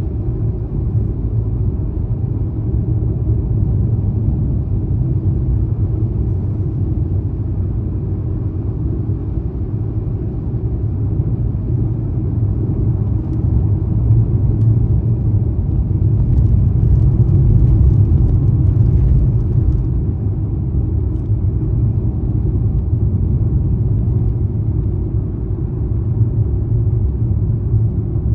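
Steady low rumble of a car on the move: engine and road noise, growing a little louder midway through.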